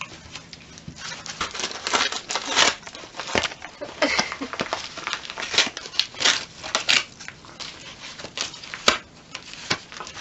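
Shetland Sheepdog tearing and crumpling brown paper wrapping with its mouth: a run of irregular rips and rustles.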